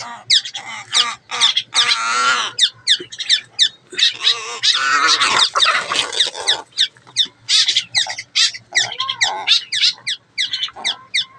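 A pet crow squawking and cawing in quick, harsh, overlapping calls, with a chicken squawking too, as the two squabble.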